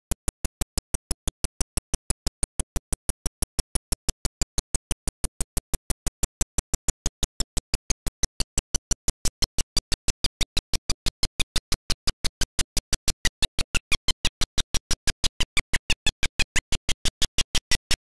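Rapid, perfectly even clicking pulses, about four or five a second, that take the place of the broadcast sound. This is a recording glitch chopping the audio track, not a sound from the gym.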